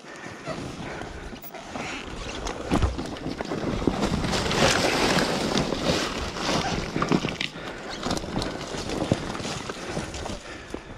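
Brush and ferns scraping against a dirt bike as it creeps down a steep forest singletrack, with tyres crunching over dirt and sticks and scattered knocks and clicks. The sound is loudest a few seconds in.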